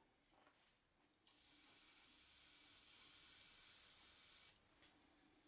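WD-40 aerosol can spraying: one steady hiss lasting about three seconds, starting about a second in and cutting off sharply.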